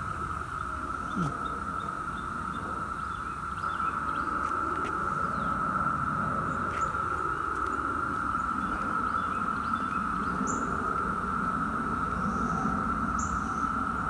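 Chorus of Brood X periodical cicadas: a steady, unbroken drone held at one pitch, over a low rumble.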